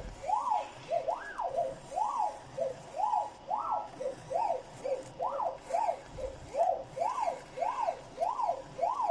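The vertical plotter's motors whine as the laser head traces the engraving pattern. The pitch rises and falls with each short move, about two moves a second, and some moves climb higher than others.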